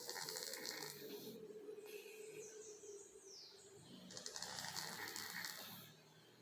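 Kitten snoring in its sleep: two long breaths, one at the start and another about four seconds in.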